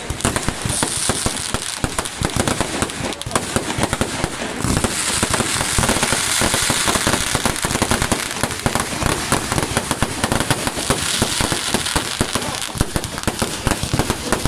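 Fireworks display: many aerial shells and firecrackers going off together in rapid, unbroken bangs and crackles.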